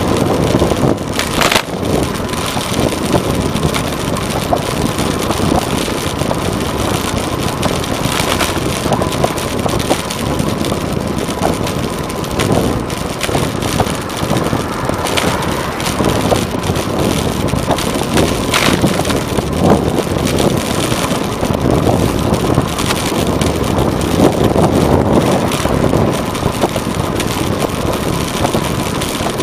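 Steady rush of wind and road noise while riding a bicycle, with wind buffeting the microphone and a few sharp knocks from bumps in the road.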